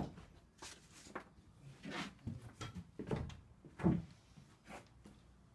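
Footsteps and knocks on a wooden subfloor inside a framed house, irregular, about one every half second to a second.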